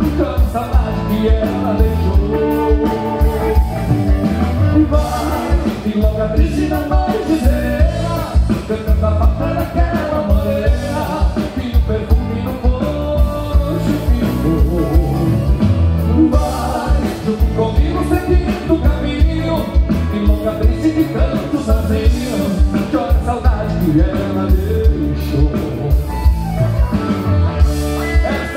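Live gaúcho band music with a steady beat and singing.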